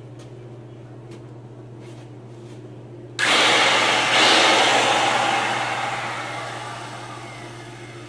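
Handheld electric wood router started about three seconds in, its motor whining up to speed within about a second, then slowing down, the whine falling slowly in pitch and loudness.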